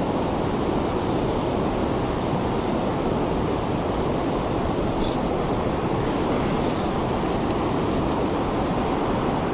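River water rushing steadily, from the current and a low weir spilling across the river.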